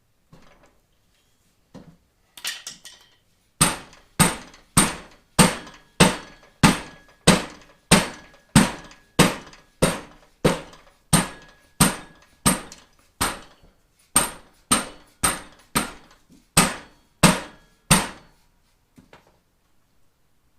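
Rubber mallet beating on a go-kart tire to work the bead off the rim: after a few light knocks and a clatter, a long run of about two dozen sharp, steady blows, a little under two a second, each with a faint ring.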